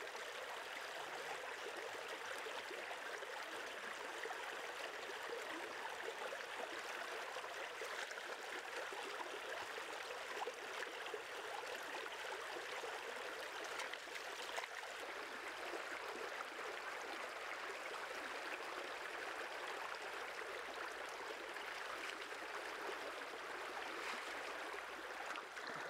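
Shallow stream water running steadily around the legs and rocks, with splashing as a gutted crocodile carcass is rinsed and scrubbed in the current.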